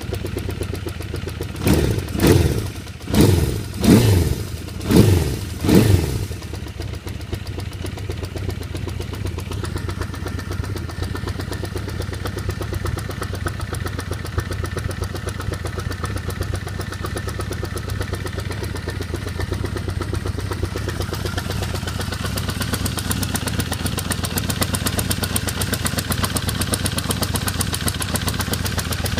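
1978 Honda CB550K's four-cylinder engine idling with a ticking noise whose source the owner can't pin down. The throttle is blipped five times in quick succession in the first few seconds, each rev rising and falling straight back, then it settles to a steady idle.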